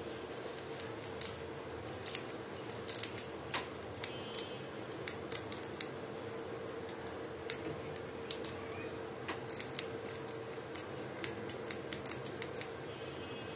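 A pet rat gnawing and crunching a small piece of food close to the microphone: irregular sharp crunching clicks, sometimes several in quick succession, over a steady low hum.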